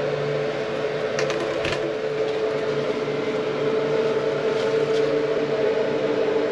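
Bathroom exhaust fan running with a steady hum, with a few light clicks about a second in and again near five seconds.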